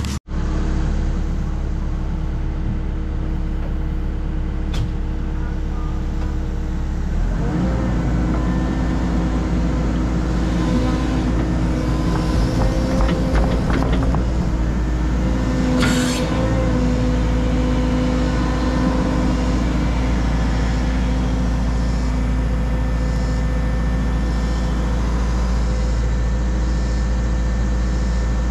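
Cat compact excavator's diesel engine running, heard from the operator's seat. It is throttled up about seven seconds in, and the hydraulics whine under load as the boom swings out and lowers the bucket. There is a short hiss about sixteen seconds in.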